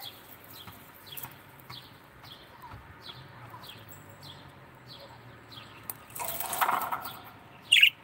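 Caged parakeets chirping: a short falling chirp repeats about twice a second, wings flap in a brief burst about six seconds in, and one loud falling call comes just before the end.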